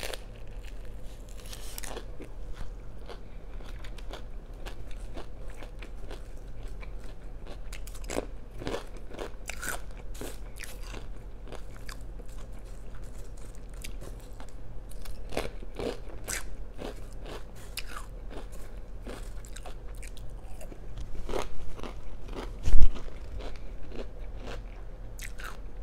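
Close-miked eating: repeated biting, crunching and chewing of crunchy food in the mouth. A single loud thump lands near the end.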